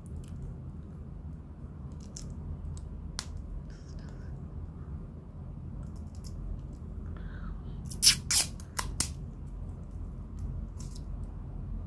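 Small clicks and light handling noises from an acrylic keychain and its metal ring being turned over in the hands, with a quick run of several sharp clicks about eight seconds in, over a low steady hum.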